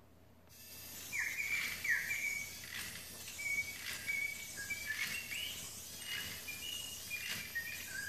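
Toy canary chirping: a string of short, high tweets, several opening with a quick downward slide, repeating irregularly.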